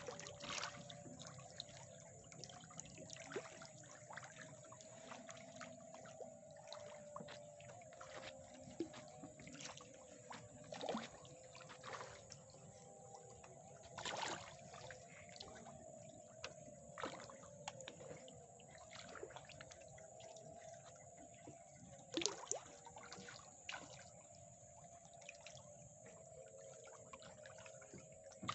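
Faint, irregular small splashes and drips of water at the surface of a floating river fish cage crowded with tilapia, a sharp splash every second or so, over a faint steady hum.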